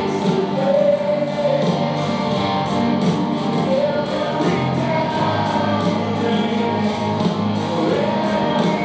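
Live band playing amplified rock music over a PA with a lead singer, guitars and a steady drumbeat, heard from far back in the audience.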